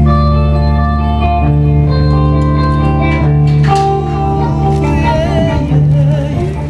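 Amplified rock music: electric guitar playing sustained, changing notes over a low held bass note.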